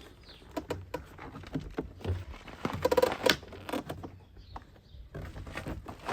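Plastic interior door panel of a VW Passat B6 being pulled away from the door, with a run of clicks, knocks and creaks from the panel and its retaining clips. The busiest, loudest stretch comes about three seconds in.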